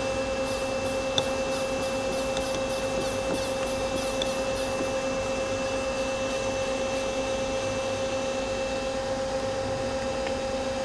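Mazak Super Quick Turn 200MY CNC turning center running under power as its C-axis is jogged: a steady machine hum with a steady tone and a higher whine that stops near the end.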